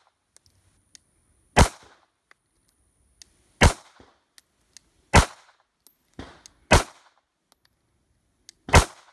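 Glock 19 Gen 5 9mm pistol firing five single shots at a slow, uneven pace, about one every one and a half to two seconds.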